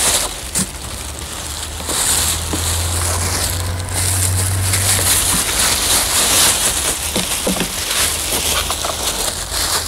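Clear plastic packaging bags crinkling and rustling as a new plastic motorcycle leg shield is handled and slid out of its wrapping. A low steady hum sits under it, strongest from about two to five seconds in.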